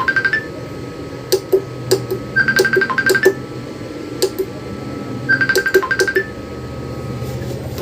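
A short run of rapid high electronic beeps, repeating about every three seconds, with sharp clicks between the runs, over a steady low hum.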